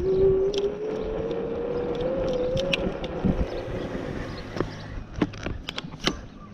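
500 W electric scooter motor whining, its pitch rising steadily for about the first three seconds as it speeds up, then fading out. Scattered sharp clicks and knocks run through it.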